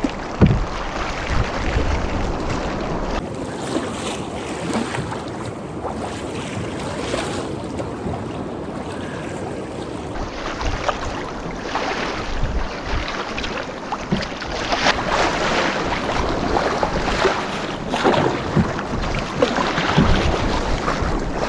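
Lake Superior waves splashing against a canoe underway in choppy reflection waves, with gusty wind on the microphone. The sound changes abruptly about three seconds in and again about ten seconds in.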